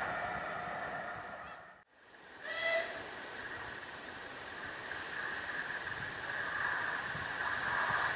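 A train's sound fades out, and after a brief silent cut a steam locomotive's whistle gives one short single-tone blast about two and a half seconds in, from Bulleid Light Pacific 34027 Taw Valley approaching out of sight. A faint steady hiss follows and slowly grows louder.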